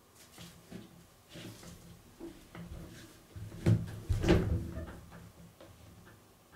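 Scattered soft knocks and rustles, with two louder dull bumps about half a second apart near the middle.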